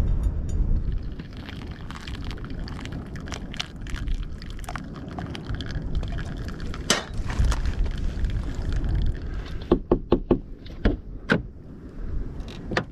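Wind buffeting the microphone with a steady low rumble, over the clinks and knocks of camp cooking gear being handled. About ten seconds in comes a quick run of louder, ringing clinks.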